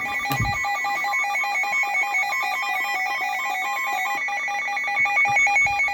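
Electronic alert tones: several high pitched beeps switching rapidly in a repeating ringtone-like pattern over a held high tone, stopping just before the next broadcast warning.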